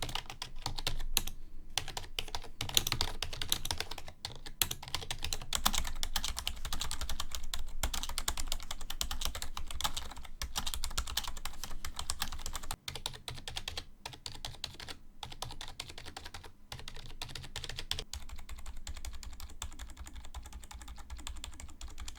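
Typing on Razer membrane (rubber-dome) gaming keyboards, the Cynosa Chroma Pro and an Ornata Chroma with its mechanical click removed: a fast, continuous run of key presses, with a short break about 13 seconds in.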